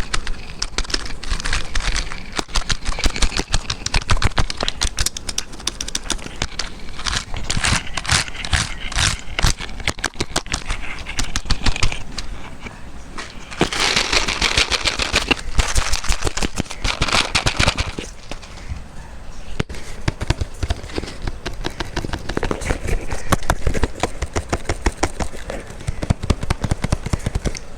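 ASMR mouth sounds: rapid wet clicks and smacks, with a louder, hissier stretch about halfway through.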